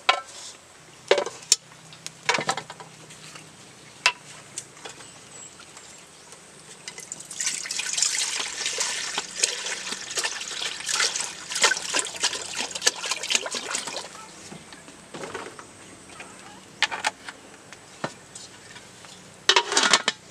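Water poured from a plastic jug into a metal cooking pot for several seconds in the middle. Sharp knocks and clanks of the pot and its metal lid come before and after the pour, with a cluster near the end as the lid is set on.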